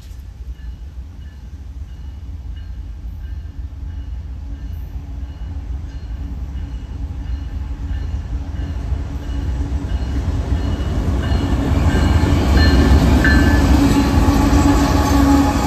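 BNSF freight train's two diesel locomotives approaching and passing close by: a steady engine rumble and drone that grows louder all the way, loudest as the locomotives go past near the end.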